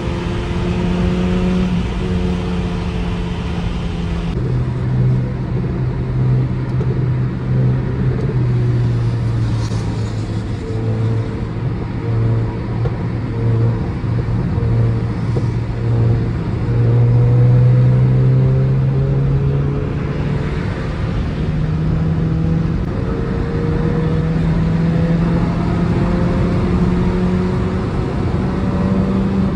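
Honda Civic's 1.8-litre R18 four-cylinder engine running through an aftermarket rear exhaust while driving, heard from inside the cabin over steady road noise. Its note drops suddenly about four seconds in, climbs slowly, then steps up around twenty seconds in and keeps rising as the car pulls.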